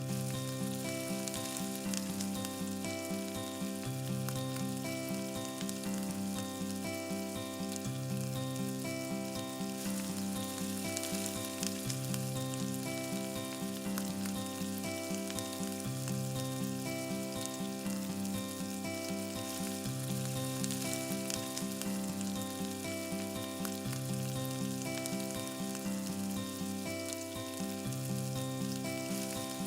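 Food frying and sizzling with a crackling hiss in a miniature pot over a small wood fire, under background music with a repeating melody.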